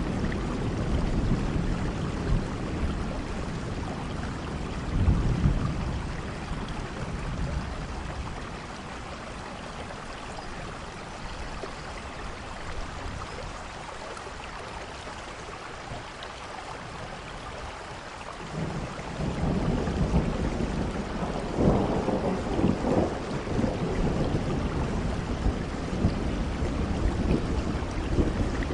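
Steady rain noise with a low rumble underneath. It eases through the middle and grows louder again about two-thirds of the way through.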